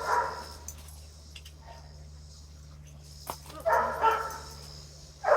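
A dog barking: one bark right at the start, then two close together about four seconds in, and another at the very end.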